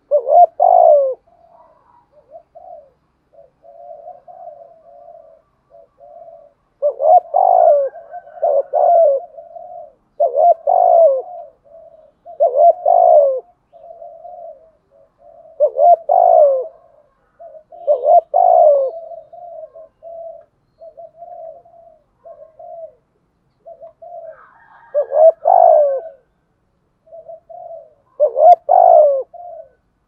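Spotted dove cooing: loud coo phrases repeated every two to three seconds, with softer coo notes in between.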